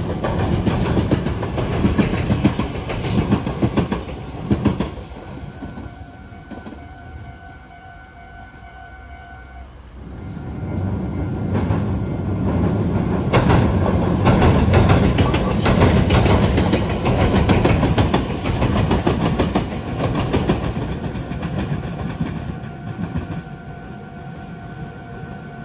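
Meitetsu electric trains passing at a rail junction. One is going by at the start and fades away by about five seconds in. A second passes from about ten seconds in, its wheels clattering rhythmically over rail joints and points before fading near the end. A faint steady high tone is heard in the quieter gaps between them.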